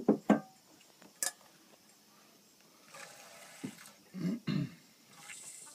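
Milk squirting by hand into a stainless steel bowl. A few short knocks and thumps are louder than the milk: two at the start, a sharp click about a second in, and two more a little before the end.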